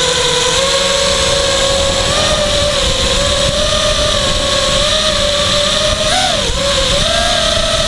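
Blade Conspiracy 220 quadcopter's brushless motors and propellers whining steadily, the pitch drifting with the throttle and briefly rising then dipping about six seconds in, over wind rushing across the onboard GoPro's microphone.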